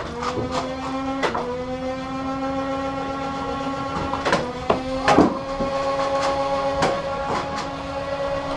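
Motorised flywheel foam-dart blaster held revved: a steady motor whine that sags after each shot and climbs back up. Sharp firing clicks come in a quick cluster at the start, then single shots about four and five seconds in and a few more near the end.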